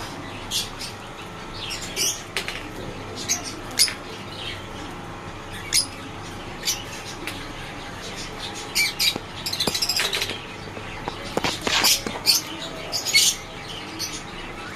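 Domestic birds calling: short, high chirps and squawks at irregular intervals, with a quick run of calls about ten seconds in.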